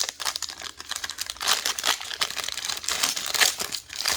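Plastic wrapping of a trading-card pack crinkling and crackling as it is handled.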